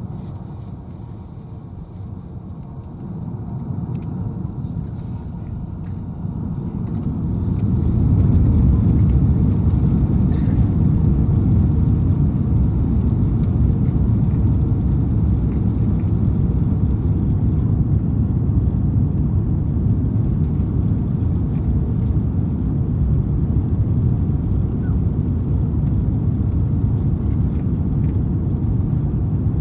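Airbus A340's four jet engines spooling up for takeoff, heard inside the cabin: a low rumble that builds over the first few seconds and rises sharply about seven seconds in. It then holds steady and loud through the takeoff roll.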